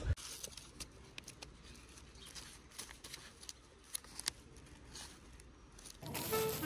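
Faint rustling and scattered small clicks from hands handling paper money and a zippered fanny pack. Background music comes in about six seconds in.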